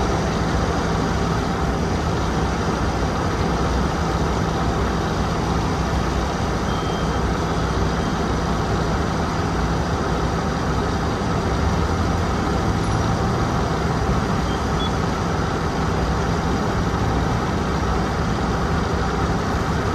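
Fire engine's diesel engine running steadily to drive the pump feeding the hose lines: a constant loud drone with a low hum under a wide hiss.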